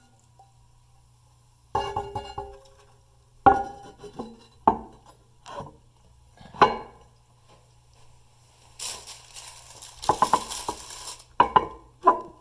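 Porcelain lid of an Eljer toilet tank clunking and clinking against the tank as it is set back on: a series of sharp ceramic knocks, with a brief scraping hiss near the end.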